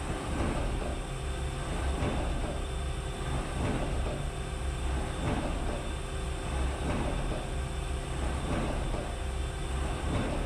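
Mazak Integrex mill-turn machine shaping (broaching) the square hardy hole of an anvil: the tool strokes back and forth in a steady rhythm, about one cutting stroke every three-quarters of a second, over the machine's constant running hum.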